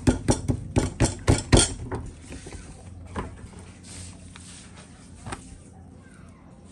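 Clicks and knocks of hands and folded bread dough against a metal baking sheet: a quick run of about eight sharp clicks in the first second and a half, then two single soft knocks, about 3 and 5 seconds in.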